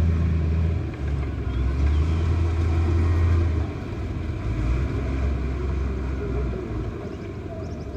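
Heavy earthmoving machine's diesel engine running with a low drone that changes pitch a few times as it works. It grows quieter about halfway through and fades further near the end.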